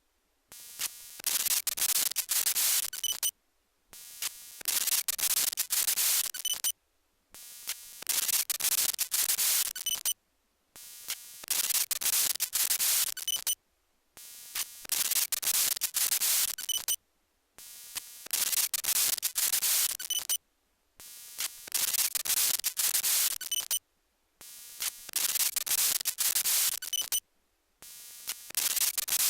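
PC audio-output fault played through computer speakers: bursts of loud white-noise static with a buzzy electronic bleep in them, about three seconds each, cut by short silences and repeating about every three and a half seconds. Not caused by the speakers, since new speakers give the same sound; the system can lag or freeze while it plays.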